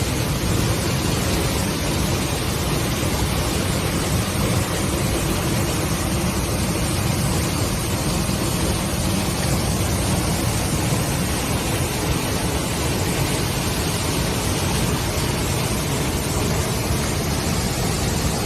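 Steady rush of water from a waterfall, an even, unbroken noise.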